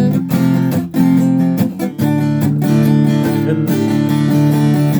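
Acoustic guitar strumming chords steadily, an instrumental passage of the song with no singing.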